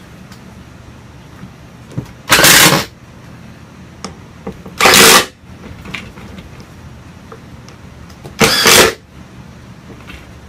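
Cordless power driver running in three short bursts, each about half a second, while tightening the chair's screws.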